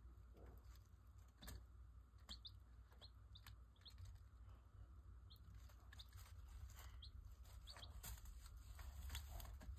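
Week-old White Leghorn chicks peeping softly in short, high, scattered peeps, with a few faint clicks of beaks pecking at feed. A low steady hum runs underneath.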